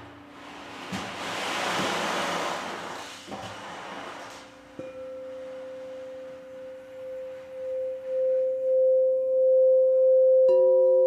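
Sound bowls ringing: after a few seconds of soft rushing noise under a faint held tone, one bowl is struck about five seconds in and rings on with a clear tone that swells and pulses, and a second, lower-pitched bowl is struck near the end.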